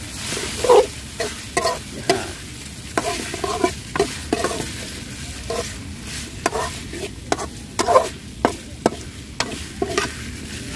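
A metal spoon stirring chicken livers and gizzards in chili paste in a two-handled metal wok, scraping and clinking against the pan at an uneven pace over a steady sizzle of frying.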